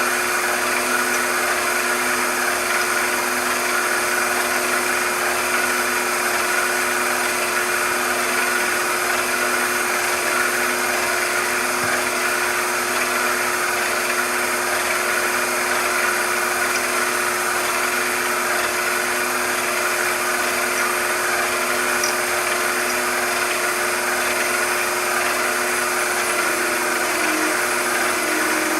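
Machine tool running steadily with a constant motor hum and gear whine and no change in speed.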